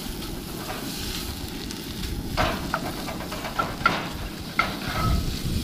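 Beef chorizo and onions sizzling in a cast iron skillet, stirred with a spatula that scrapes the pan several times. The food is sticking to the skillet, which is new and not yet seasoned.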